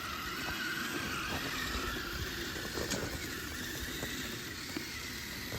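Radio-controlled Tamiya Blizzard tracked snow vehicle running: the electric motor and gearbox give a steady whine whose pitch wavers up and down with throttle, over the rattle of the plastic tracks on icy snow.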